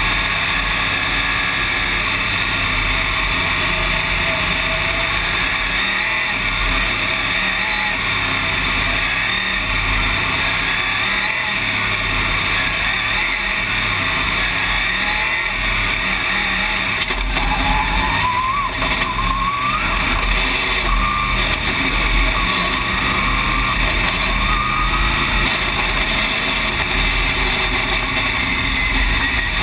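Dirt late model race car's V8 engine running, heard from inside the open cockpit with other race cars around it. The engine pitch rises as it accelerates, about two-thirds of the way through and again near the end.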